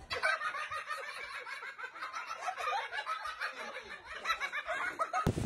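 A young child giggling and laughing in a rapid, continuous run of short high-pitched peals, cut off near the end by a sudden loud burst of noise.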